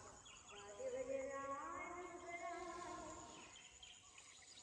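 Faint distant human voices for about two and a half seconds, then fading away.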